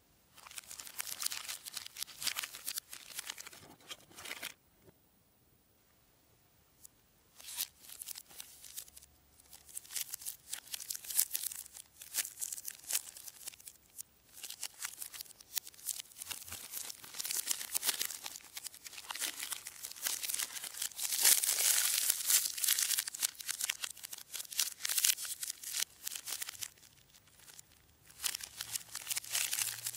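Plastic snack wrappers, such as a Kinder Bueno wrapper and a cellophane biscuit pack, crinkling and rustling as they are handled, in dense bursts of crackle. A pause of about three seconds near the start; loudest a little past the middle.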